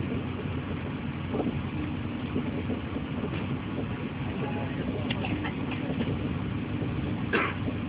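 Steady low running noise heard inside the carriage of a Chinese D-series high-speed train travelling at speed. A few brief sharper sounds are heard, the loudest near the end.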